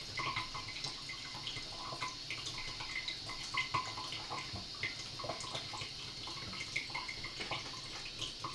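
Aquaphor DWM-312S Pro reverse-osmosis filter running while filling a tank: a small, steady trickle of water with irregular light drips. Most of such a system's noise usually comes from the water running out of the drain line.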